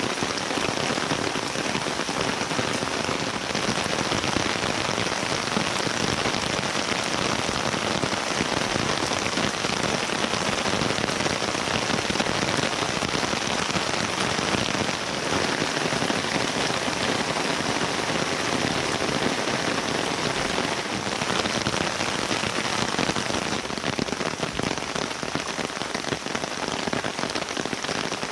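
Steady rain falling: a dense, even hiss with no breaks.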